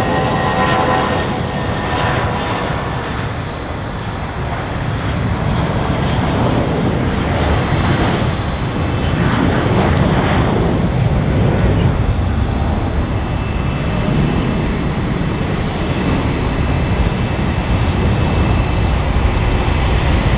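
Airbus A320 jet airliner at takeoff power: a steady, loud jet engine noise with a thin high whine running through it as it rolls and climbs out.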